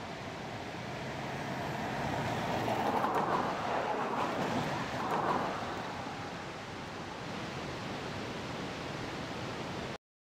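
Subaru Outback driving past: a rushing noise that swells as the car approaches, is loudest about three to five seconds in, then eases off as it drives away, and cuts off abruptly near the end.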